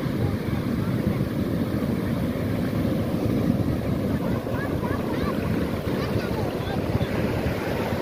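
Heavy surf breaking on a sandy beach, a steady wash and rumble of waves and foam, with wind buffeting the microphone.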